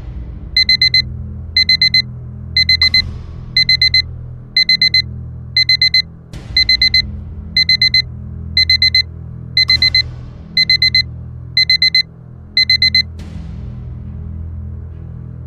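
Digital alarm beeping in quick groups of four short beeps, about once a second, then stopping about thirteen seconds in. A low steady drone runs underneath, and a few whooshes sweep through.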